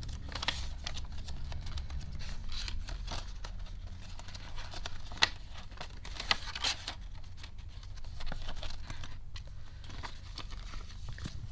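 Paper banknotes and a clear plastic binder envelope being handled: crinkling rustles with scattered light clicks and taps, a couple of sharper clicks around the middle.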